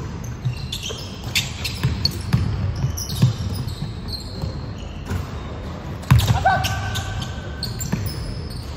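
Basketball game on a wooden gym court: a ball bouncing and players' shoes squeaking, ringing in a large hall, with a loud thud about six seconds in and a short shout just after it.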